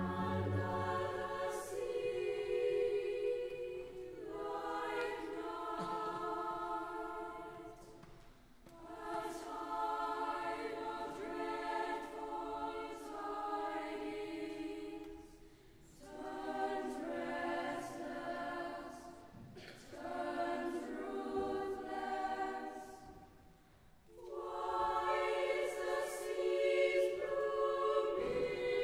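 Children's choir singing in high treble voices, in sung phrases of a few seconds each with brief breaks between them.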